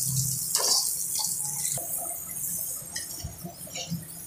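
Potato fries sizzling steadily in hot ghee in a wok during their second fry, stirred with a wire spider strainer that scrapes and clinks a few times.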